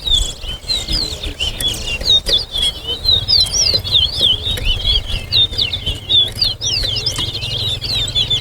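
Towa towa finch (chestnut-bellied seed finch) singing a fast, unbroken warbling song of quick rising and falling whistled notes, over a steady low rumble.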